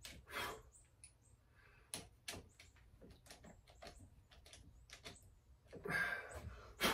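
Scattered light clicks and taps of small hand tools and metal parts being worked at a dirt bike's handlebar clutch lever, with a short rasp about six seconds in and a sharp click just before the end.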